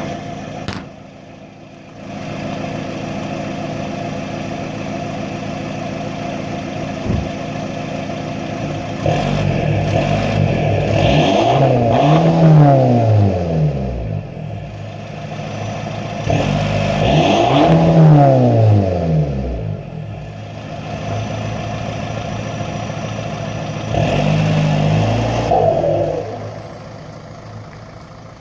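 A 2006 VW Jetta's 1.9 TDI four-cylinder turbodiesel idling through a straight catback exhaust with the muffler and resonator deleted, then revved twice in long rises and falls of pitch and once in a shorter blip. Near the end the car pulls away and the sound fades.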